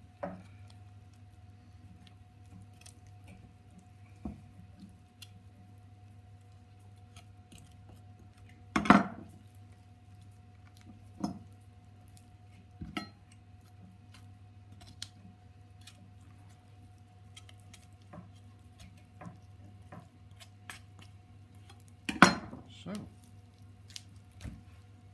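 Scattered knocks and clatters of a chef's knife and a chicken leg on a wooden chopping board during deboning, over a steady low hum. The two loudest knocks come about nine seconds in and near the end.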